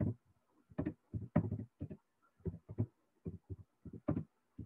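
Keystrokes on a computer keyboard: short, irregular taps, about three or four a second, as text is typed.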